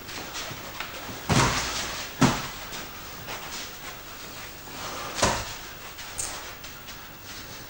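Boxing sparring: three loud, sharp thuds, a bit over a second in, about a second later and again past five seconds, among lighter taps and scuffs of gloves and footwork.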